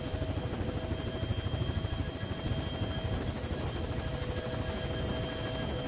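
Helicopter running overhead of the scene as heard from aboard: a steady low throb from the rotor with a faint constant engine whine.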